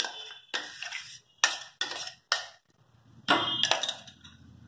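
Metal spoon scraping and knocking against the inside of a stainless-steel mixer-grinder jar to get thick ground coconut-and-onion paste out, with about five sharp clinks in the first two and a half seconds. A longer clatter of metal follows about three seconds in.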